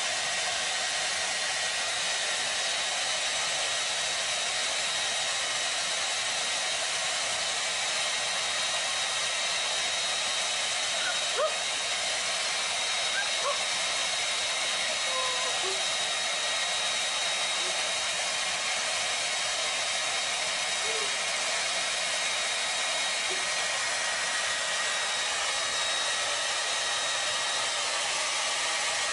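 Handheld hair dryer running steadily: a constant blowing hiss with a thin high whine from its motor.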